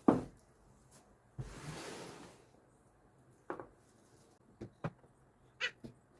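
Parts of a portable air cooler being handled during unpacking and setup: a sharp knock at the start, about a second of rustling or sliding, then several light knocks and clicks in the second half.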